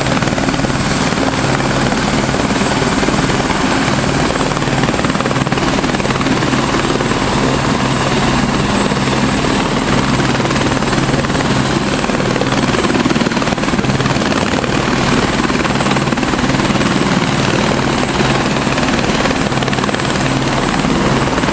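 Helicopter running on its pad with the main rotor turning: a loud, steady drone of rotor and engine with a low hum underneath, holding even with no change.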